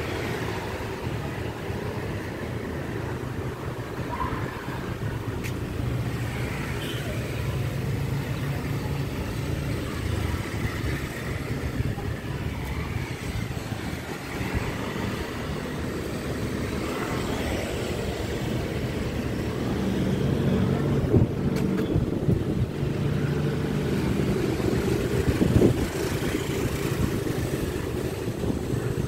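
Street traffic below, mostly motorbikes, as a steady rumbling background, with two brief knocks in the last third.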